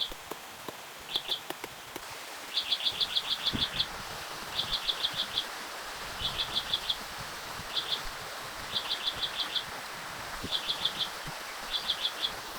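A bird calling in quick runs of short, high, chirping notes all on one pitch, three to nine notes per run, repeated every second or so over a steady background hiss.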